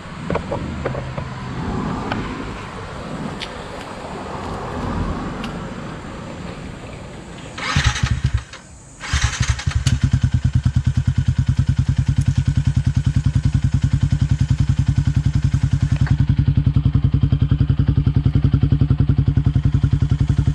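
Yamaha Sniper 150 single-cylinder engine with a Yoshimura Alpha exhaust and its silencer insert fitted, cranked in two short goes about eight seconds in before it catches, then idling steadily with a rapid, even exhaust pulse. Irregular rustling and knocks come before the start.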